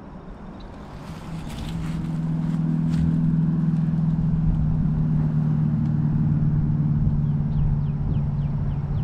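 Lew's Speed Spool baitcasting reel cranked steadily through a retrieve, a low steady gear whir that builds up over the first two seconds and then holds.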